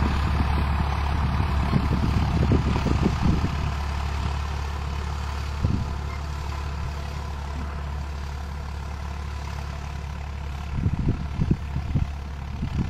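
A Farmtrac 60 PowerMaxx 55 hp tractor's three-cylinder diesel engine runs steadily under load, pulling an eight-disc harrow through the soil. The engine fades gradually as the tractor moves away. There are a few brief low bumps about two to three seconds in and again near the end.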